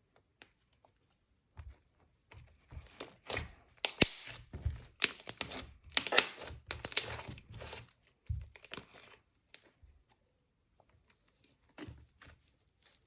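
Hands working slime, stretching and pressing it: irregular crackling and sticky popping, busiest in the middle and thinning out to a few pops near the end.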